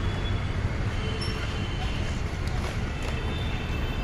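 Steady low rumble of engines and street traffic, with a few faint high squeaks.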